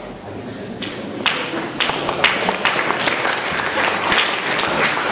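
Audience applauding. The clapping starts about a second in and quickly thickens into many hands clapping.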